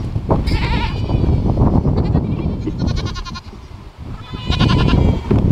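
A herd of goats bleating for feed as they run toward the feed bucket: several short calls with a wavering pitch, about half a second in, around three seconds in and again near the end, over a low rushing noise.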